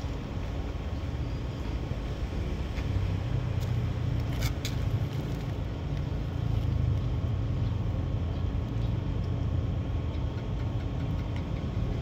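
Steady low rumble, machine-like, with a faint steady hum over it and a few light clicks about four and a half seconds in.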